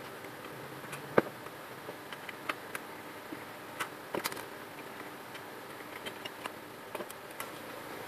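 HP LaserJet 1010 laser printer running with a steady motor hum and irregular sharp clicks and knocks from its gear train, the gear noise of a damaged main drive gear.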